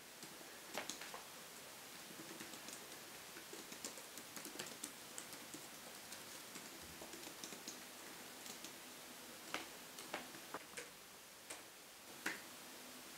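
Typing on a laptop keyboard: a faint, irregular run of key clicks, with a few harder keystrokes standing out, most of them in the second half.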